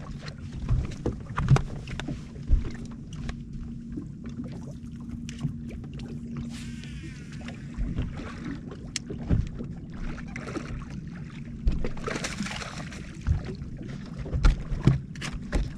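Small waves lapping and knocking against the hull of a Phoenix bass boat, with a splash about twelve seconds in as a hooked fish is scooped up in a landing net.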